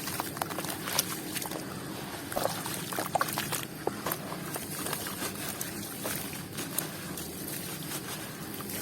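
Crunchy crumble pieces being dipped in water and breaking up, with wet sloshing, a fizzy crackle and scattered sharp cracks, the loudest about a second in and around three seconds in.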